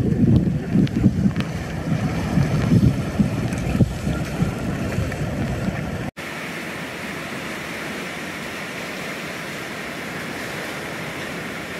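Wind buffets the microphone over running water and surf in the first six seconds. After a sudden cut, a steady hiss of ocean surf washes over a rocky shoreline.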